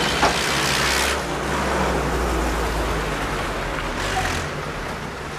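GAZ-69A jeep's four-cylinder side-valve petrol engine running as the open vehicle drives past, with tyre and road noise over a steady low rumble and a short click about a quarter second in.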